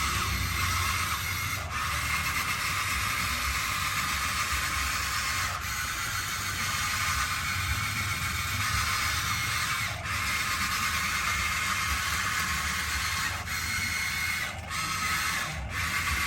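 Electric motors and gearboxes of 1:16-scale RC construction machines whirring steadily, broken off briefly a few times.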